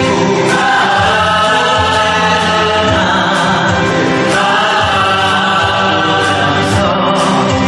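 Musical theatre number: a cast chorus singing together over instrumental accompaniment, held notes and steady volume throughout.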